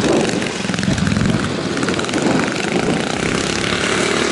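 Classic trials motorcycle engine running steadily as the bike climbs a grassy hillside section.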